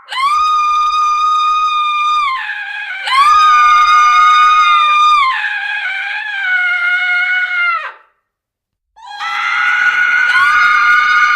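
A woman's high-pitched screams, each held for about two seconds and then dropping in pitch, with a lower scream falling beneath them. The sound cuts out completely about eight seconds in, and a new scream starts a second later.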